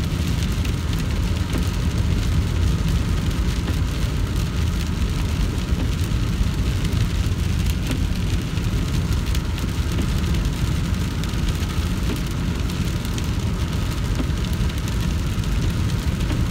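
Steady low road rumble and wet-tyre hiss inside a moving car, with rain spattering on the windshield.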